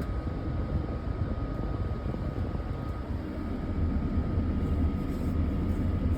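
Volvo excavator's diesel engine running steadily, heard from the operator's cab, with the low rumble growing louder about four seconds in. A faint steady high whine stops about three seconds in.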